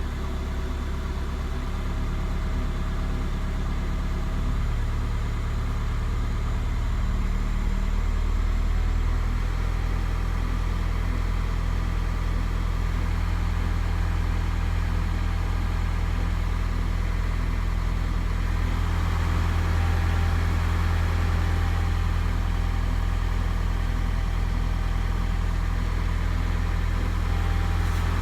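The four-cylinder 1.9 TDI pump-injector diesel of a Skoda Octavia A5 running steadily at idle, its speed and loudness stepping up slightly over the first several seconds. This is the engine whose knock the owner is chasing.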